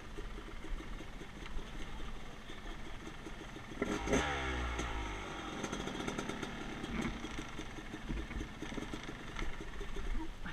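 Yamaha YZ250X two-stroke dirt-bike engine running at low speed over rocky trail, with one sharp rev about four seconds in that falls away again. Scattered knocks and clatter from the bike over the rocks.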